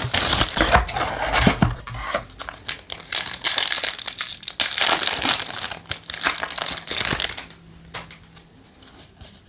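Cellophane shrink wrap crinkling and tearing as it is pulled off a trading-card booster box, followed by foil booster-pack crinkling. The crackle dies down for the last two seconds.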